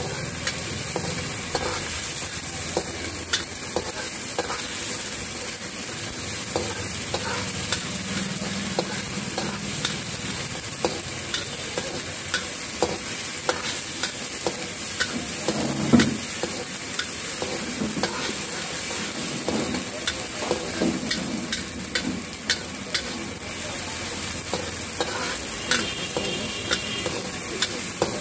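Onions, capsicum, curry leaves and ginger-garlic paste sizzling in hot oil in a wok, stirred with a long metal ladle that scrapes and clicks against the wok again and again. One louder clank comes about halfway.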